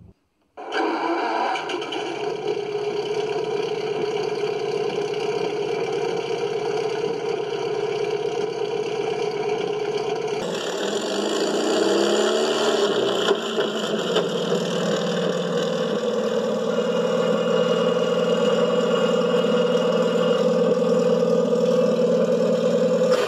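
RC tank sound unit playing a simulated Ford GAA V8 engine starting up, then running at idle. Its pitch swings up and back down in a brief rev about halfway through, after which it settles into a steady idle.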